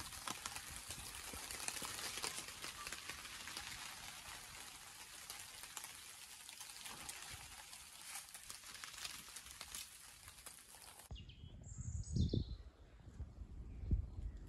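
Steady crackling hiss that cuts off abruptly about eleven seconds in, followed by a few short bird chirps and some dull low thumps.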